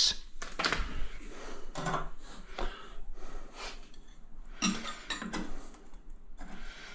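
Small metal clinks, taps and scrapes at irregular intervals as a toilet roll holder mount, its screws and hand tools are handled, with a few louder knocks about five seconds in.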